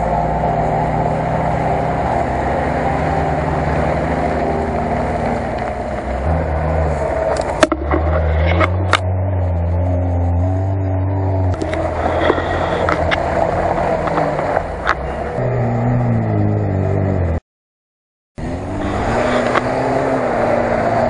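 Lada Niva four-cylinder engines revving hard and easing off again and again as the cars churn through deep mud, the pitch climbing and falling. A few sharp knocks come about eight seconds in, and the sound cuts out for about a second near the end.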